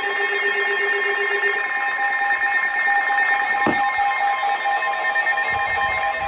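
Several weather radios sounding their alert alarms at once for a Flash Flood Warning: overlapping steady, pulsing electronic alarm tones at different pitches. The lowest tone stops about a second and a half in, and a short falling sweep comes about halfway through.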